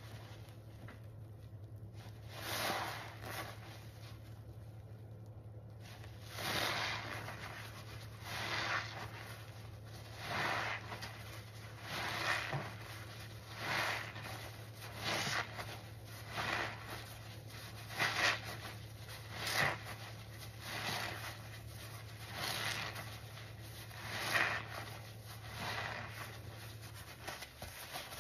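Soap-soaked foam sponges, thick with suds, being squeezed by hand in a sink: a wet, sudsy squeeze about every second and a half, after a pause of a few seconds near the start.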